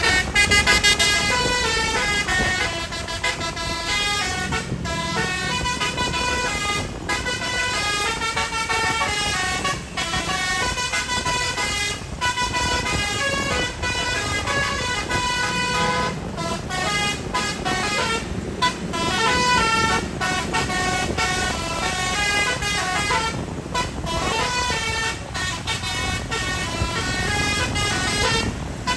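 Tour bus telolet horn, a Basuri-type set of electric multi-tone horns, playing a melody in stepped notes, with short breaks between phrases.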